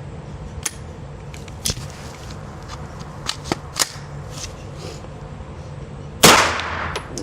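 A single 9mm shot from an AR9 pistol-calibre carbine about six seconds in, sharp and loud with a ringing tail. Before it, only a few faint clicks of handling over a steady low hum.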